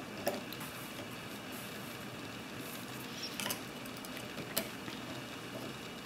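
Small metal clicks and light scraping as a flat home-made skeleton key is worked inside an S&G lever-type mailbox lock. Three sharper clicks stand out: just after the start, a little past the middle, and about three-quarters through. A steady background hum runs underneath.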